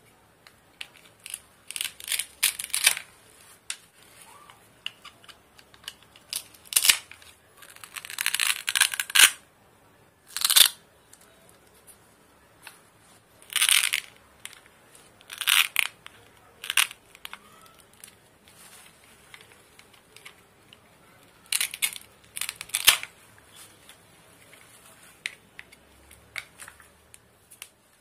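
Velcro ripping as the halves of toy plastic fruit and vegetables are pulled and cut apart with a plastic toy knife: a dozen or so short rasping rips, with light clicks and knocks of the plastic pieces in between.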